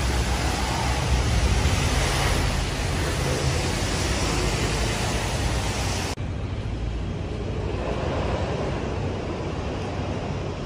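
Steady outdoor city noise: a continuous rush of traffic with low wind rumble on the microphone. About six seconds in it cuts abruptly to a duller, slightly quieter rush.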